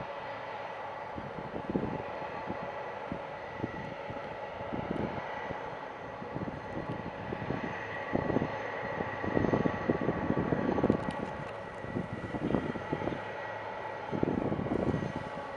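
Boeing 747-400F freighter's four turbofan engines running as it rolls along the runway after landing: a steady whine with a high held tone, with irregular low gusts of noise over it that grow stronger in the second half.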